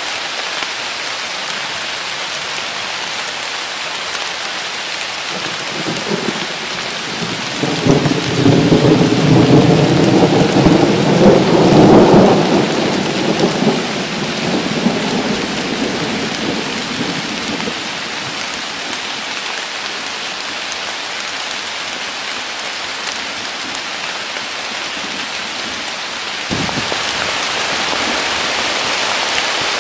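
Summer downpour pouring steadily, with a rolling peal of thunder that builds about six seconds in, peaks around twelve seconds and fades out by about eighteen seconds. Near the end the rain noise suddenly gets louder.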